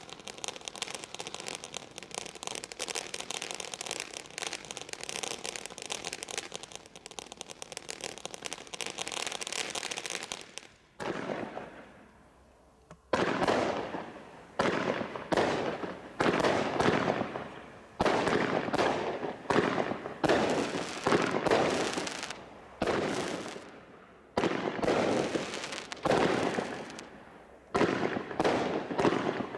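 Consumer fireworks going off. About ten seconds of dense, continuous crackling comes first, then a short lull. After that a barrage of loud bangs follows at roughly one a second, each fading away before the next.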